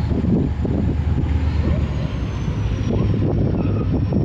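EMD GT22 diesel-electric locomotive approaching slowly at the head of a long freight train of empty cement wagons, its two-stroke diesel engine making a steady low rumble.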